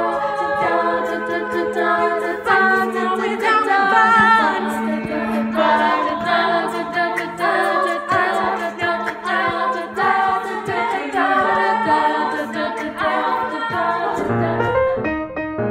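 Women's a cappella group singing in several parts without instruments, a low voice holding a steady note under the moving upper voices.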